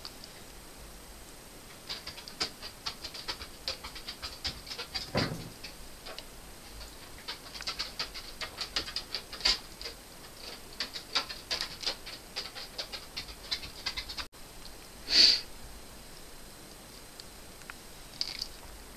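An excited dog's claws clicking and tapping in quick irregular runs on a hard floor, with one short louder sound about three-quarters of the way through.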